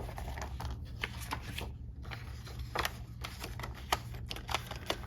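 Paper planner pages and inserts being handled and put away: irregular light clicks, taps and short paper rustles over a steady low hum.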